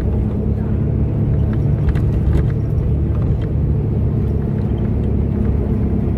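Bus running along a road, heard from inside the cabin: a steady low engine and road rumble with a few light rattles.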